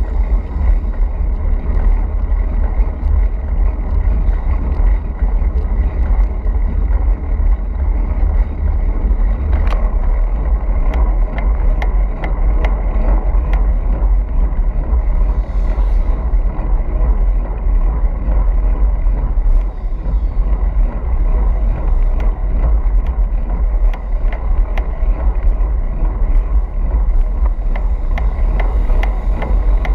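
Heavy wind buffeting on the microphone of a handlebar-mounted camera as a road bicycle rolls at speed, a steady deep rumble with road and tyre noise. Scattered sharp ticks and knocks come through in the middle stretch.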